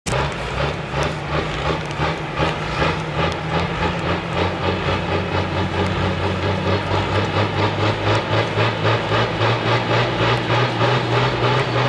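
John Deere 4050 pulling tractor's six-cylinder diesel engine running at the start line: a steady low drone that pulses regularly about twice a second, its stack putting out thickening dark smoke.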